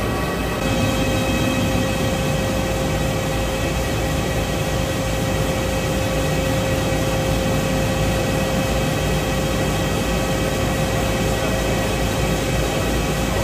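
Wheel spinning machine running, forming an aluminium forged wheel blank: a loud, steady mechanical noise with several steady tones, one steady hum coming in about half a second in.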